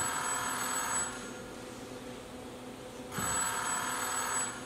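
Telephone ringing twice, each trilling ring lasting about a second with a two-second gap between them: a ring sound effect played over the stage speakers.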